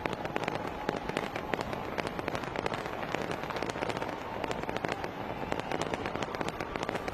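Fireworks crackling: a dense run of many small sharp pops overlapping without a break.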